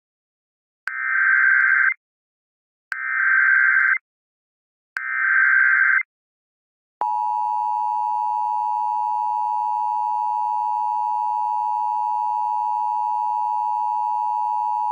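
Emergency Alert System header: three one-second bursts of SAME digital data tones, about a second apart, followed by the EAS attention signal, a steady two-tone alert tone held for about eight seconds that cuts off suddenly. Together they mark the start of an EAS test activation.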